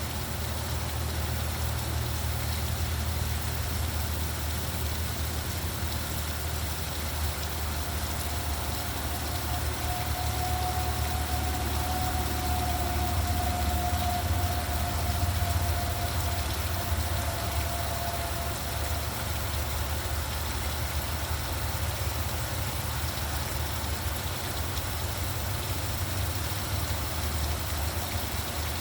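Steady rain hiss over a continuous low rumble of road traffic. A faint thin whine lasts about ten seconds in the middle.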